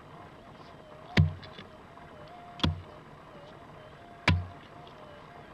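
A prospector's pick striking hard, stony dirt three times, about a second and a half apart, each blow a sharp thud. Under it, a steady warbling tone from the metal detector's threshold hum.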